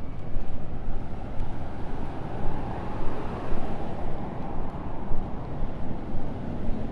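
Outdoor street ambience: a steady low rumble of road traffic mixed with wind buffeting a phone microphone, the loudness fluttering unevenly.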